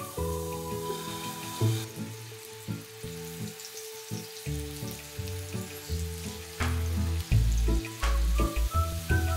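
Raw meatballs sizzling in hot oil in a frying pan as they are set in, the sizzle growing louder about two seconds in, with a few short clicks later on. Soft background music plays throughout.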